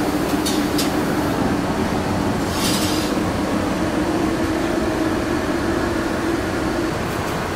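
Steady rushing noise of commercial kitchen ventilation and equipment with a low hum, a few light clicks in the first second and a short scrape about three seconds in as a plate goes onto the broiler's wire rack.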